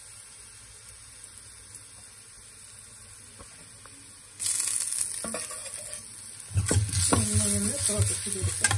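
Cumin, fennel seeds, green chillies and ginger frying in oil in a stainless steel pan: a faint low hiss, then about four seconds in a loud sizzle starts suddenly. From about six and a half seconds a metal spoon stirs and scrapes the spices around the pan.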